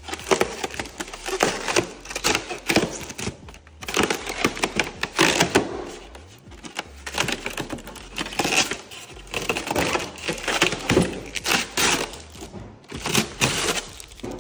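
White polystyrene foam packing insert being pried and pulled apart by hand, giving irregular bursts of crackling and scraping.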